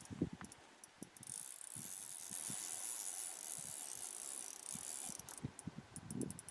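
Spinning fishing reel whirring and clicking as a hooked Arctic char is played on the rod, with a run of quick clicks near the end and a few soft knocks against the boat.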